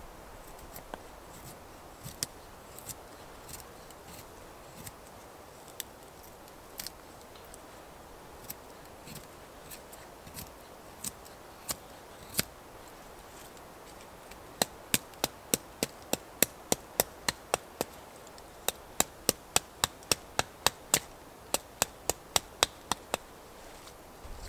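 Knife carving thin curls off a split dry spruce stick to make a feather stick, each stroke a crisp, short cut. The cuts are scattered at first, then come in a fast, even run of about three strokes a second through the second half, with a short pause in the middle of the run.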